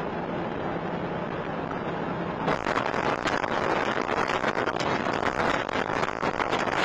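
Truck cab noise: engine and road noise running steadily. About two and a half seconds in it turns suddenly into loud, rough rattling and jolting as the truck leaves the road and runs out of control across rough ground.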